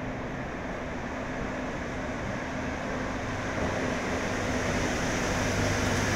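Madrid Metro train running into an underground station: the rumble of steel wheels on rail with a steady low hum, growing gradually louder as it approaches and passes the platform.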